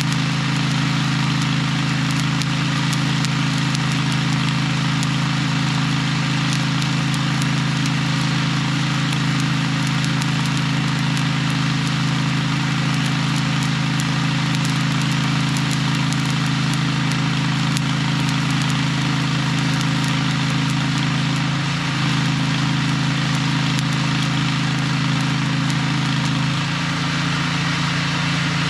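Heavy earthmoving machine's diesel engine running at a steady speed, a loud even drone whose tone shifts slightly twice in the last third. Faint scattered ticks sit over it.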